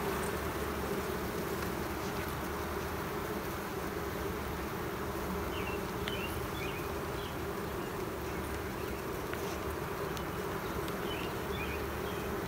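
Honeybees buzzing steadily in a dense mass over an open hive, a continuous even hum from the bees on and around a lifted brood frame.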